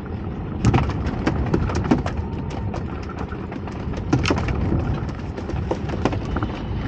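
Steady low rumbling of wind and water around a small open fishing boat, with scattered sharp clicks and knocks from rod and tackle as a fish is played on rod and line.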